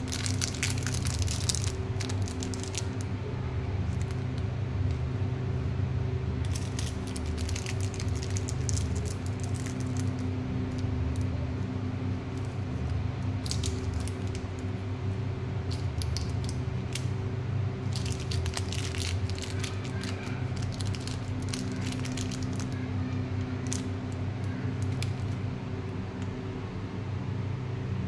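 Wrapped toffees and sweets being handled and set down, their plastic wrappers crinkling in several short clusters, over a steady low hum.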